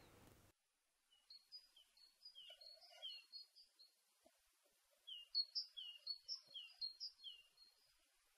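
A songbird singing: two bouts of quick high chirps mixed with short falling notes, a second or so apart.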